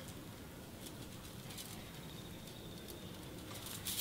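Quiet handling: faint rustles and a few light ticks as wire is wound around a juniper bonsai branch.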